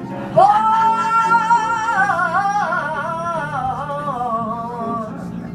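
A woman's jazz vocal: one long note held steady from about half a second in, then wavering and sliding slowly downward over the next few seconds and fading near the end, with instrumental accompaniment low underneath.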